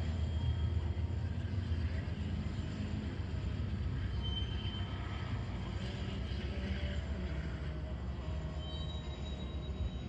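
Manifest freight train led by Union Pacific diesel locomotives passing at a distance: a steady low rumble of engines and rolling cars, easing off slightly as it goes.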